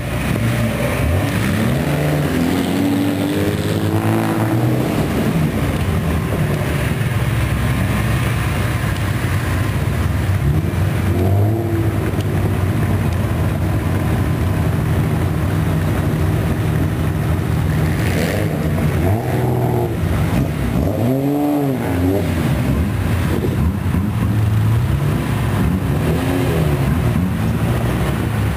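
Loud aftermarket exhausts of modified old Japanese cars revving, the engine note swinging up and down in repeated blips over a steady rumble as the cars pull away one after another.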